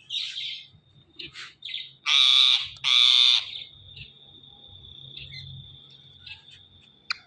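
Ring-necked parakeets calling: a few short high chirps, then two loud harsh screeches in quick succession about two seconds in, followed by a thin high steady tone with scattered small chirps.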